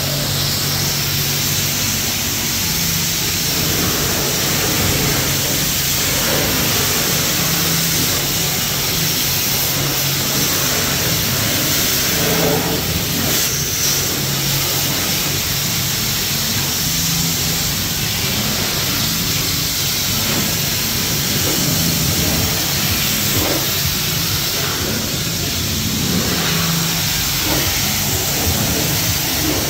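High-pressure water spraying from a self-serve car wash wand onto a soapy car body, a steady hiss with a steady low hum underneath.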